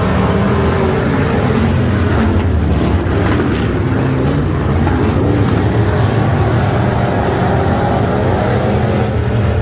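A pack of dirt-track modified race cars running hard together around the oval, their engines loud and steady, with engine notes rising and falling as drivers lift and get back on the throttle through the turns.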